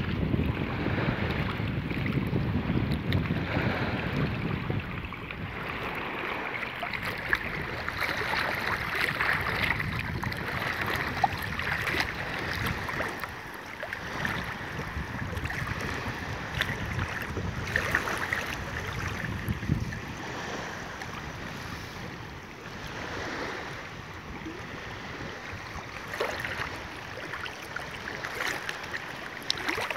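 Shallow seawater swishing and splashing around wading legs, with wind buffeting the microphone, heaviest in the first few seconds, and a few short sharp splashes.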